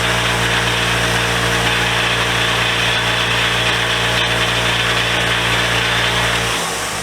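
Bench grinder's wire wheel running steadily, brushing a steel wrench to smooth off chips and burrs: a motor hum under a dense rasping hiss. The hum stops shortly before the end.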